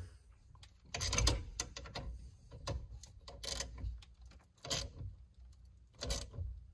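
Scattered mechanical clicks and rattles of a hand tool working a bolt, a cluster about a second in and single clicks after it: the 10 mm bolt that seats the bulkhead wiring connector being tightened.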